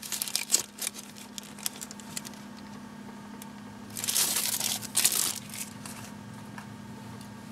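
Thin wrapping crinkling and rustling as sunglasses are lifted out of it and handled: soft rustles with small clicks at the start, then a louder burst of crinkling about four seconds in and a shorter one around five seconds.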